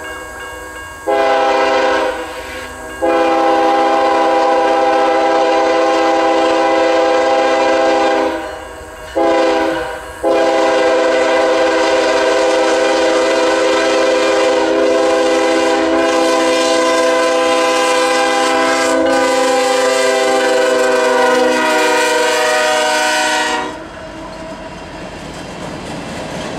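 Diesel locomotive multi-chime air horn blowing the grade-crossing signal: two long blasts, a short one, then a final long blast held about thirteen seconds, its pitch sagging slightly near the end. When the horn stops, the rumble and clatter of the train rolling past rises.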